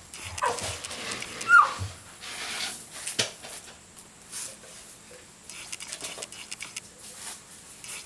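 A dog whining, with a couple of short high whimpers in the first two seconds, then one sharp clank about three seconds in.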